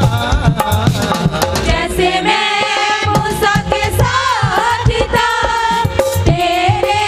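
Music from a Hindi worship song: a drum beat with a held, wavering melody line over it.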